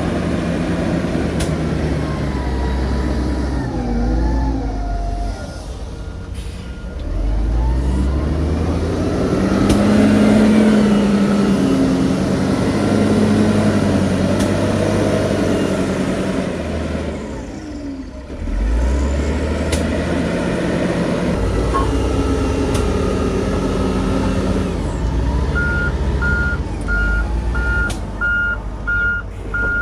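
Heavy diesel earthmoving machinery working, engines revving up and down under load. A reversing alarm beeps briefly about five seconds in, and again in a steady series near the end.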